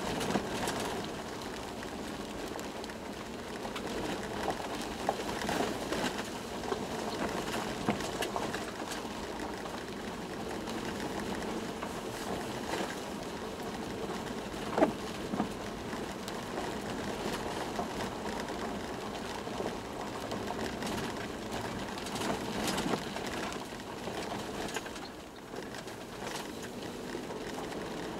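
Toyota Land Cruiser 120 driving on an unpaved forest track, heard from inside the cabin: steady engine and tyre noise with frequent small knocks and rattles, and one sharper knock about halfway through.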